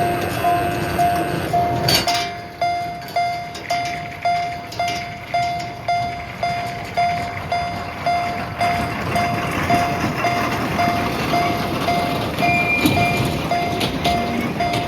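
Electronic warning bell of a Japanese-style level crossing on a park mini railway, a single-tone ding repeating evenly just under twice a second.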